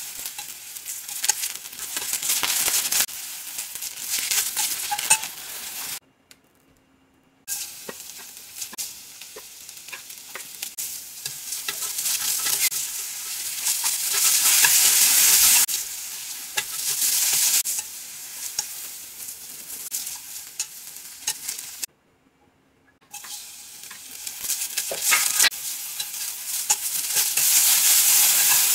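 Julienned vegetables (garlic chives, carrot and bell pepper) sizzling as they are stir-fried in a coated frying pan, with wooden chopsticks clicking against the pan. The sizzle swells and fades and breaks off twice into brief silence.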